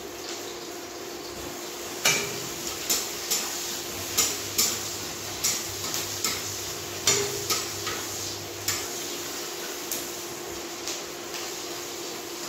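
Onions frying in oil in a metal kadhai with a steady sizzle; from about two seconds in, a metal spoon scrapes and clinks irregularly against the pan as they are stirred.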